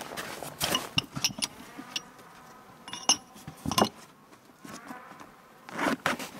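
Aluminium clutch tool being packed into a fabric pouch: rustling and light knocks, a single metallic clink about three seconds in, and near the end a louder rasp as the pouch's zipper is pulled shut.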